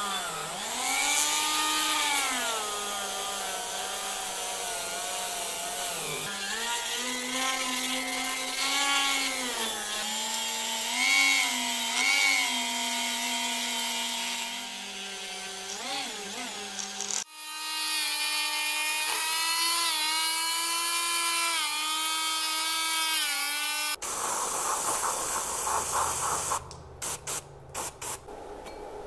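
Small high-speed rotary tool with a cleaning bit running, its whine dipping in pitch and recovering as it is pressed into the cast-iron brake caliper's piston bore, over several edited takes. Near the end, a hiss of spray, then several short spray bursts: brake cleaner sprayed onto the caliper.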